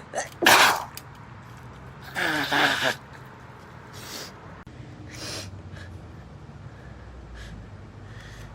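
A woman sneezing. A quick intake comes just before a sharp, loud sneeze about half a second in, then a longer voiced outburst about two seconds in, and a few faint breaths or sniffs after that.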